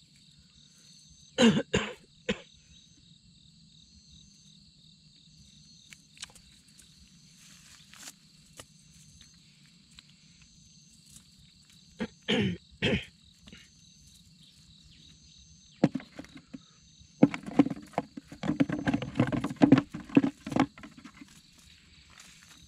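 A man coughs twice in short pairs, loud and close, over a steady evening insect trill that pulses about once a second. Late on comes a run of rustling and knocks.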